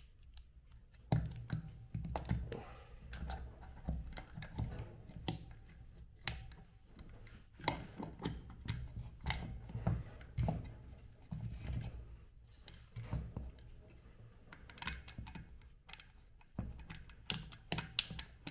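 Irregular light metal clicks and clinks with dull knocks as a Honda CRF80 dirt-bike transmission's gears and shafts are handled and slid into the engine's left crankcase half.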